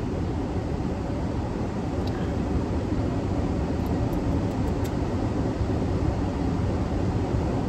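Steady low rumble inside a parked car's cabin, an even hum from the running car with no single sound standing out.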